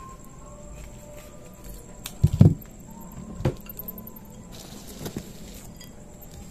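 A few scattered knocks of a knife on a chopping board while garlic is being cut, the loudest and heaviest about two and a half seconds in.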